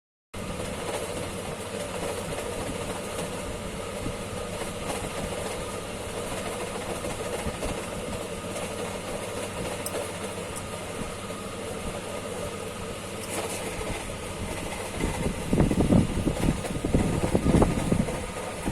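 A steady mechanical hum with a few fixed tones. About three-quarters of the way in, louder irregular rumbling and knocking comes in.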